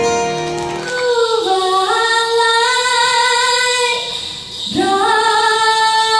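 A woman sings long held notes over musical accompaniment. The notes step upward from about a second in, break briefly around four seconds in, and then another long note is held.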